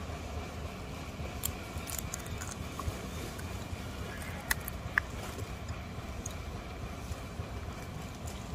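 Steady low outdoor background rumble with a few scattered sharp clicks, two slightly louder ones about four and a half and five seconds in.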